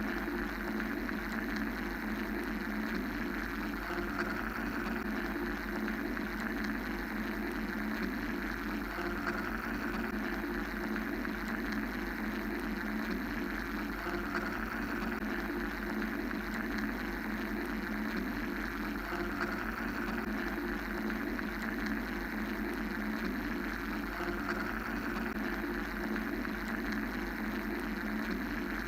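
Steady mechanical white-noise drone: a low hum under a hiss that swells and eases slowly every several seconds, without a break.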